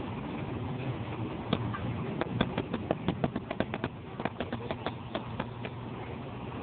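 Computer keyboard keys clicking in a quick, irregular run for about four seconds, starting about a second and a half in, over steady room noise.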